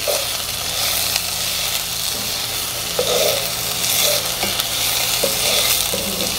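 Diced celery, onions and carrots sizzling in hot ghee in a cast iron pot, with a wooden spatula stirring and scraping them at irregular intervals.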